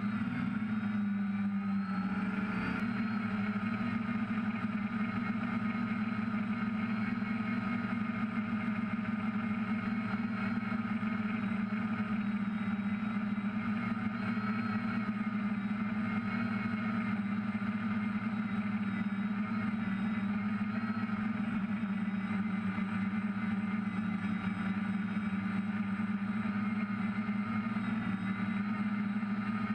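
DJI F550 hexacopter's motors and propellers running in flight, heard from the craft itself: a steady low hum with a higher whine that wavers slightly in pitch as the throttle shifts, rising a little about two seconds in.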